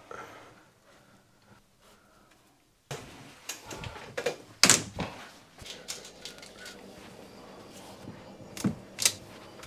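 Scattered clicks and knocks of hand work on electrical cable and fittings, the loudest a sharp knock nearly five seconds in and two more near the end; the first three seconds are nearly silent.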